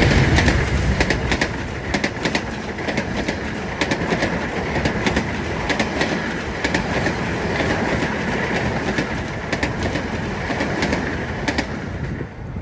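A KAI express train passing at speed, a CC206 diesel-electric locomotive followed by a long rake of passenger coaches: a steady rush of running gear with the wheels clicking rhythmically over the rails. It falls away sharply near the end as the last coach goes by.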